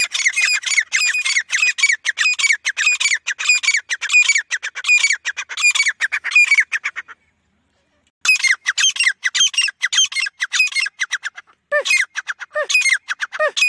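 Caged teetar (francolins) calling in a fast run of loud, repeated high notes, several a second. The calling breaks off abruptly for about a second just after the middle, then starts again, with a few lower notes near the end.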